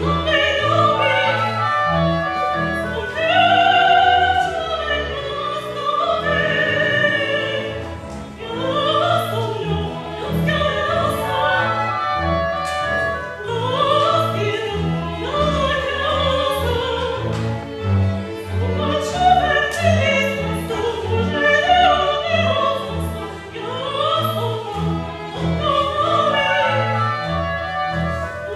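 Live contemporary chamber-opera music: a soprano sings repeated rising, arching phrases over a small chamber ensemble with violin and sustained low notes.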